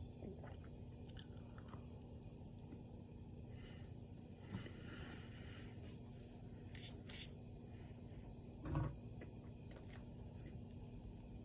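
A person chewing a steak and cheese sandwich close to the microphone, with soft scattered mouth clicks and smacks. There is a louder dull thump near the end.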